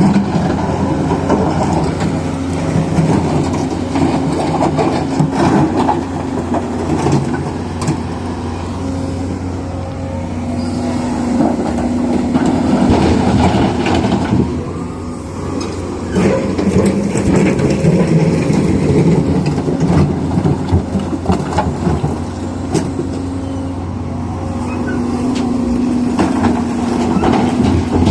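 Excavator's diesel engine running under load, its pitch and loudness rising and falling as it works, with scattered sharp knocks.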